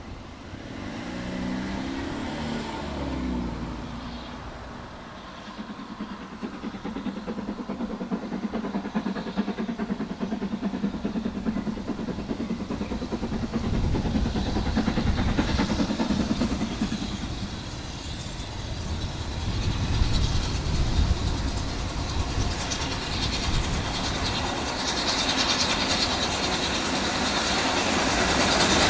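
Steam locomotive approaching with a train, its exhaust beats coming thick and fast and growing steadily louder toward the end.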